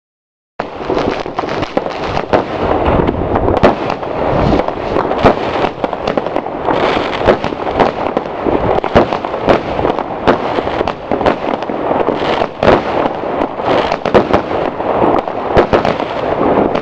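Weco Big Crackles and Dragon Fire firework batteries firing together: dense, unbroken crackling with many louder bangs mixed in. It starts suddenly about half a second in.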